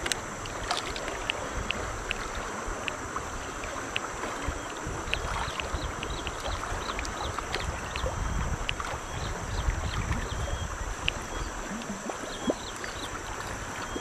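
River water rushing over shallow rapids, a steady hiss with a fluctuating low rumble, with many scattered short sharp ticks throughout.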